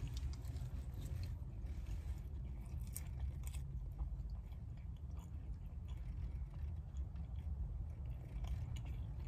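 A person chewing a forkful of loaded fries with bacon, cheese and chicken: soft, scattered mouth clicks and smacks over a steady low hum.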